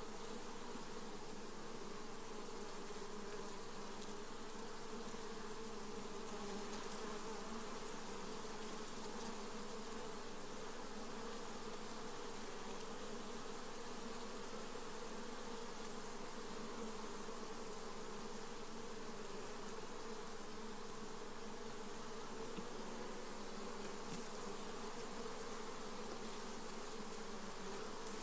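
Many honey bees buzzing together in a steady, continuous hum, with no single bee standing out.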